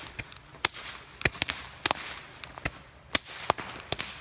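Fireworks going off: about ten sharp bangs at an irregular pace, two or three a second, with faint crackling between them.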